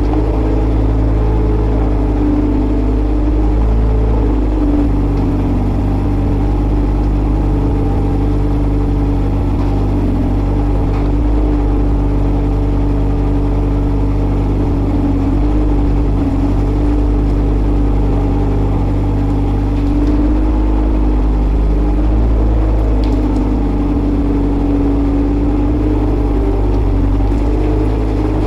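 1998 JCB 803Plus mini excavator's diesel engine running steadily at working revs, with small dips and rises in pitch as the hydraulics dig and load spoil.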